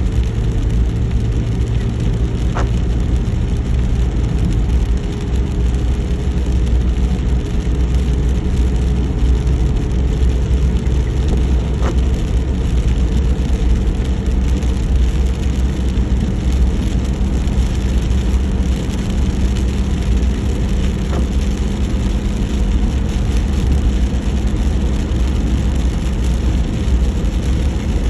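A car driving in the rain: a steady low engine and road rumble with rain noise over it, and three faint ticks spread far apart.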